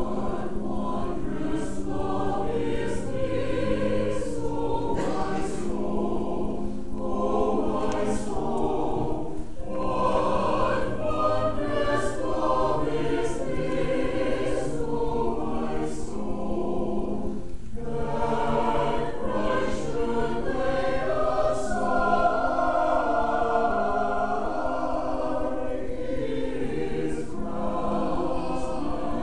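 Church choir singing together in sustained phrases, with short breaths between phrases about every eight seconds.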